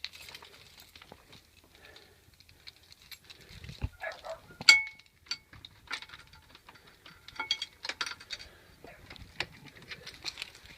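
Keys jangling with a run of small clicks and knocks, as of a key working a door lock, and one sharp metallic clack about halfway through.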